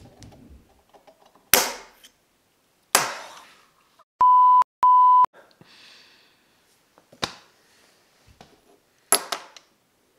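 Center punch struck into a hoverboard hub motor's thin cast aluminium cover: about four sharp metallic snaps, each ringing briefly, and the punch breaks through the thin casting. Between the strikes come two short, steady electronic censor bleeps.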